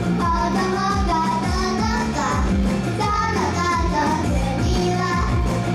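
Girls' voices singing a pop song over a loud backing track with a steady beat.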